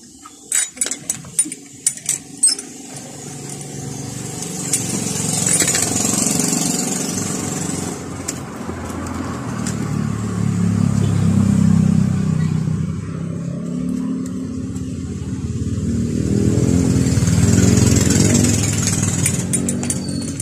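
A quick run of sharp clicks, then an engine or motor running, its pitch and loudness swelling twice.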